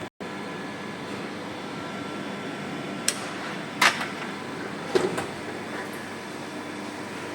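Atexco digital textile printing machine running with a steady mechanical whir, and a few sharp clicks or knocks in the middle.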